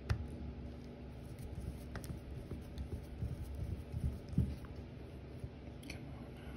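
Faint scattered clicks and light scraping of a small flathead screwdriver working against the steel parts of a small revolver's frame, prying a small spring into place, over soft handling noise.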